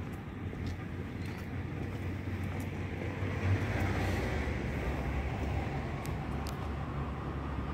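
Low, steady background rumble that swells to its loudest about halfway through, with a few faint clicks.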